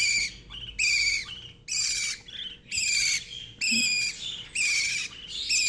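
Budgerigar chick calling over and over, a wavering high chirp about once a second, typical of a hand-fed nestling's begging call.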